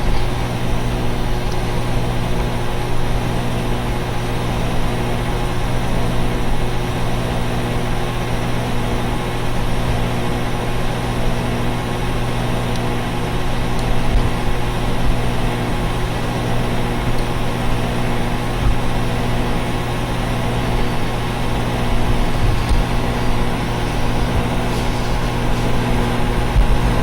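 Neighbours' central air conditioner condenser units running: a steady, loud hum with a strong low buzz that does not change.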